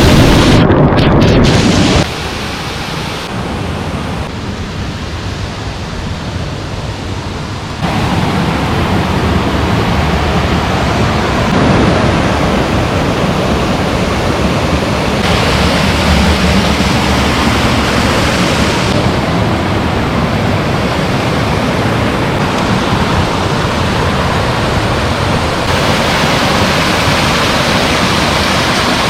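Waterfall: a steady, loud rush of falling water, its loudness and tone changing abruptly several times as the view shifts.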